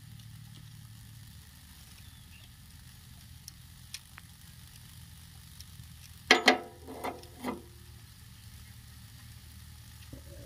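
Single-cylinder diesel engine of a Kamco power tiller idling with a steady low hum and a faint hiss. About six seconds in, three short loud vocal-like bursts cut in over it.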